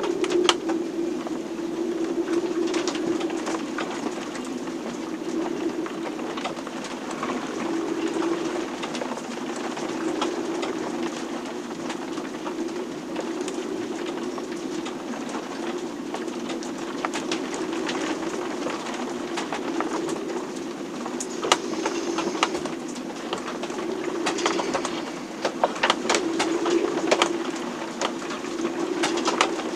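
Storm sounds inside a sailboat's cabin: a steady low moaning drone that swells and fades, with scattered knocks and creaks from the boat, and a cluster of sharper knocks a few seconds before the end.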